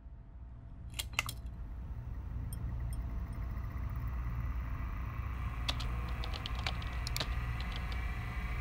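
Irregular clicking of a computer keyboard being typed on, over a steady low electrical hum and a faint whine that rises slowly. A few sharp clicks sound about a second in, and the typing thickens after the middle.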